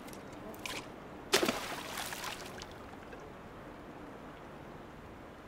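An object thrown into a river hits the water with a sudden sharp splash about a second in, followed by about a second of water sloshing and settling.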